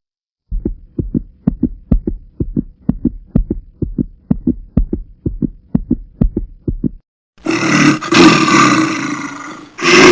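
Dramatic sound effects: a heartbeat-like thudding in regular low double beats for about six seconds, then a loud roar like a big cat's, which breaks off briefly and starts again near the end.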